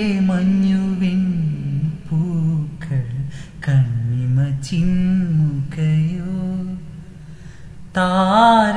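A man singing a wordless melody, humming and gliding between notes, in a Malayalam song. It falls quieter briefly near the end, then comes back in louder.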